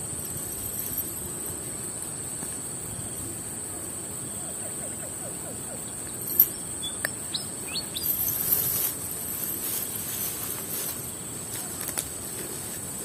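Steady high-pitched drone of insects, with a few short bird chirps about seven seconds in and scattered faint clicks.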